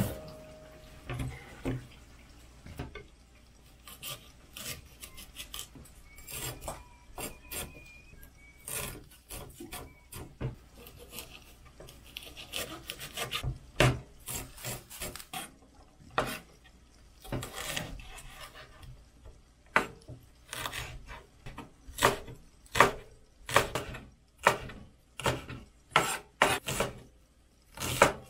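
Chef's knife cutting green chili peppers and onion on a wooden cutting board: scattered knife taps at first, then a steady run of louder chops in the second half as the onion is minced.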